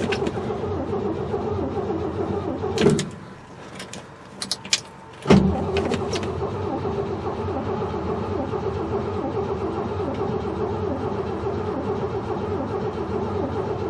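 Starter motor cranking the 1968 Chevy truck's engine without it catching, in two goes: about three seconds of cranking, a pause with a few clicks, then a long steady crank of over eight seconds. It turns over evenly but does not fire, which the owner takes for a lack of spark, later blamed on the ignition coil.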